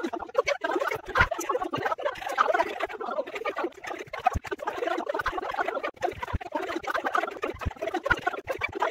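A woman's laughing and talking sped up many times over, turned into a rapid, garbled, unbroken chatter.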